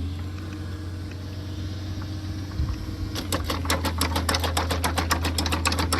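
Engine of a hydraulic post-hole auger rig running steadily. About three seconds in, a rapid clatter of sharp clicks starts, about nine a second, and keeps going.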